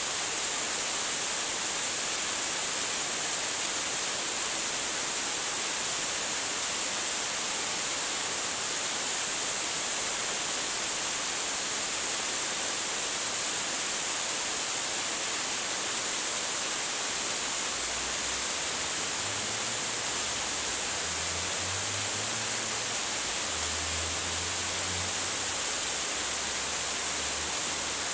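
Small waterfall splashing down a rock face: a steady, even rush of falling water. A faint low rumble joins it about two-thirds of the way through.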